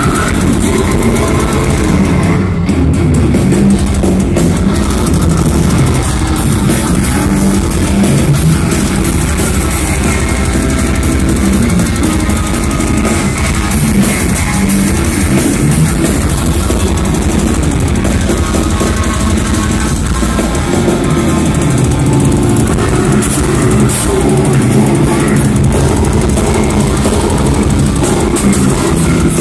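Death metal band playing live and loud: distorted electric guitars and bass over a drum kit.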